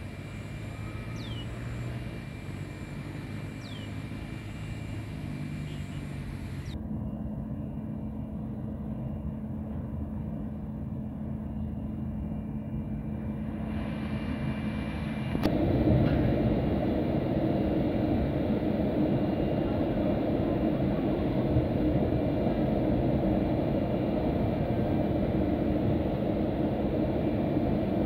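Steady rushing hum of a jet airliner running on the ground, stepping up sharply in loudness about halfway through and holding steady after.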